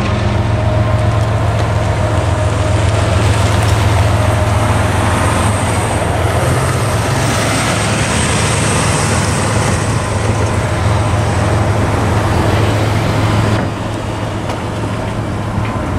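Road traffic: cars and pickup trucks driving over the railroad crossing close by, engine noise and tyre rumble under a steady low hum. The sound drops off somewhat near the end.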